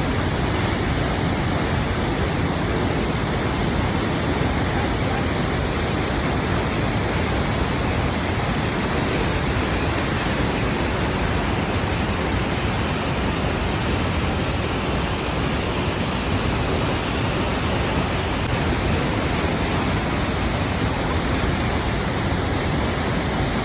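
Flowing water rushing in a steady, unbroken stream.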